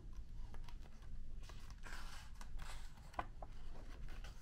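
Faint paper rustling with a few light ticks as the pages of a large picture book are handled, with a page turned near the end.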